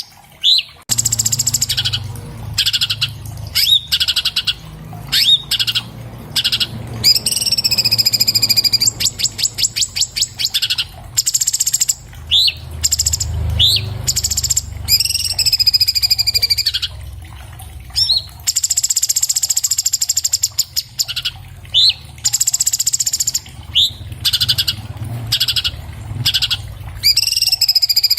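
Orange-bellied leafbird (cucak cungkok) singing a fast, varied song: rapid buzzy trills alternating with quick upswept whistled notes and sliding phrases, over a low background rumble.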